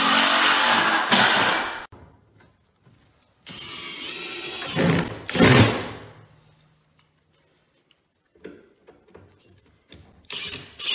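Kobalt 24-volt cordless drill driving screws through a steel mounting plate into a wooden wall board. It runs in short bursts: one at the start, another in the middle, and a third beginning near the end, with brief quiet and small clicks between.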